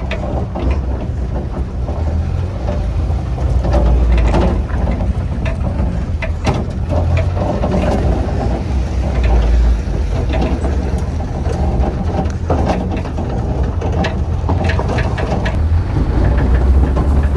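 Inside the stripped-out cabin of a moving VAZ-2114: the four-cylinder engine's low rumble with the bare body and loose interior parts rattling and clicking over a rough dirt lane.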